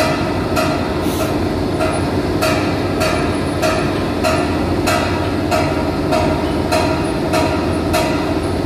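Metal struck with a hammer at a butterfly valve in a steady rhythm, about three ringing knocks every two seconds, over the continuous hum of electric water pumps running.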